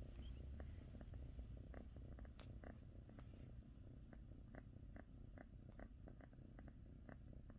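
Domestic kitten purring faintly and steadily, a low rumble, as its cheek and chin are rubbed.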